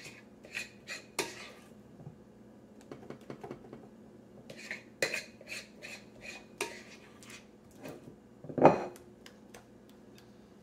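Metal spoon scraping and clinking against a glass mixing bowl while scooping thick cake batter, in short irregular clusters. One louder knock comes about eight and a half seconds in.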